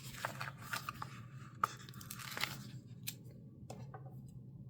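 A paper sticker being peeled off its backing sheet, with a crackling, tearing sound for about two and a half seconds, followed by a few light taps as it is handled and placed.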